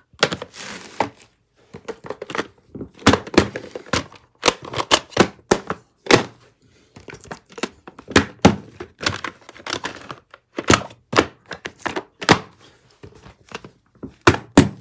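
Plastic VHS clamshell cases being handled: an irregular string of sharp knocks and clicks.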